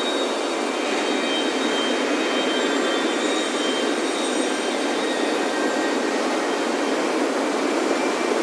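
Ocean surf breaking on a sandy beach, a steady, unbroken rush of waves, with high wind chime tones ringing faintly over it.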